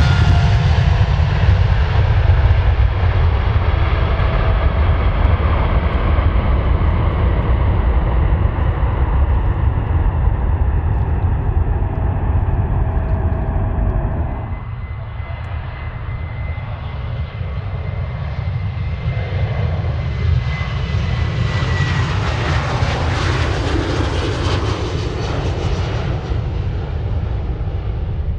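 Jet airliner's engines at takeoff power: a heavy, loud rumble with a fan whine falling in pitch as the aircraft passes. About halfway the sound changes abruptly to another jet, quieter, with a steady high whine that drops away and a roar that swells near the end.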